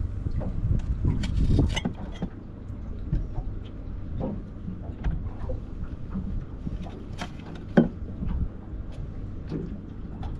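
Wind rumbling on the microphone, with scattered knocks and clicks from rummaging in a boat's deck hatch; the sharpest knock comes about eight seconds in.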